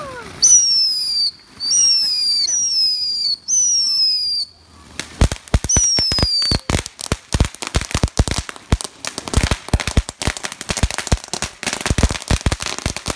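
Ground fountain firework whistling and crackling: four whistles in a row, each about a second long and falling in pitch, then one more, while from about five seconds in a rapid, dense crackle of small pops takes over.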